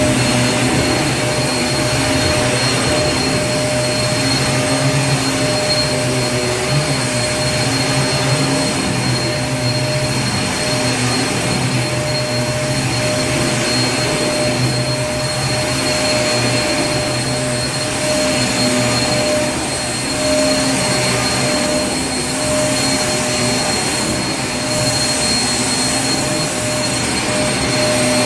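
Vacuum cleaner running steadily: a continuous rushing whoosh of air with a constant motor whine.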